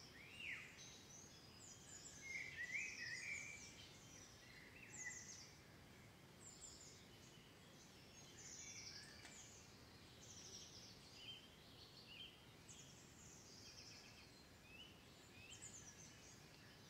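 Faint birds chirping and twittering: many short, high calls and quick sweeping notes, one after another, the strongest a brief trill about two to three seconds in, over a low hiss.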